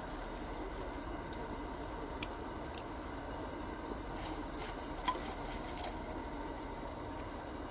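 Steady low noise of a steaming pot of broth on a gas camp stove. A few light, sharp clicks come from the metal spice jar as spice is shaken from it into the pot.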